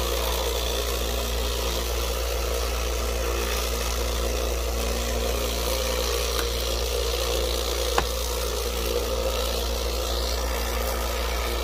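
Lot-O vibratory rock tumbler running with agates and ceramic media in the polish stage: a steady low hum with a constant buzzing rattle, and one sharp click about eight seconds in.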